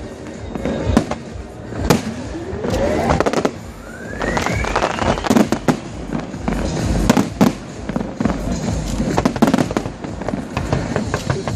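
Fireworks display: a rapid series of bangs and crackling bursts. A whistling shell rises steadily in pitch from about two seconds in to about five seconds in.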